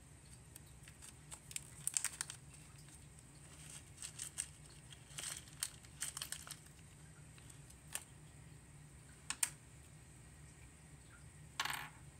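Slime being handled: scattered soft crackles and clicks every second or two, with a longer crinkly rustle near the end.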